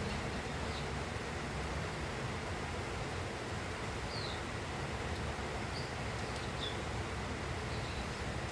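Steady moderate rain falling, an even hiss, with a few short, faint, high chirps a little past the middle.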